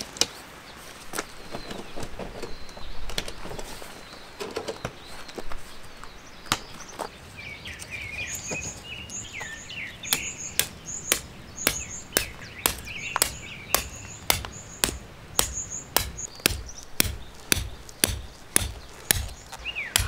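Hammer driving a tent peg into gravel, sharp blows about two a second from about halfway on; before that, scattered knocks and rustles as the tent and its poles are handled. Birds chirp around the middle.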